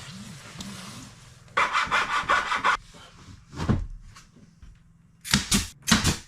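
A saw cutting a wooden board in a quick run of strokes for about a second, then a few sharp, loud knocks near the end.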